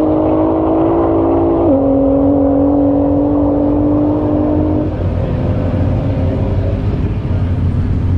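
A car moving slowly gives a steady hum made of several held tones. The hum drops slightly in pitch about two seconds in and stops about five seconds in, leaving a low rushing noise.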